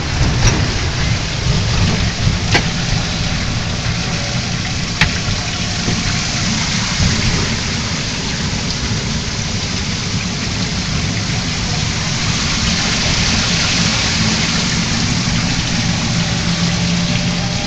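Heavy downpour pelting a vehicle's windows and body, heard from inside, over the low steady hum of its engine. Three sharp taps stand out in the first five seconds.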